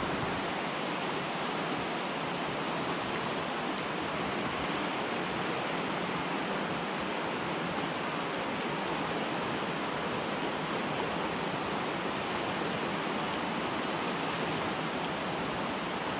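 Steady rush of a swollen mountain creek running high and fast.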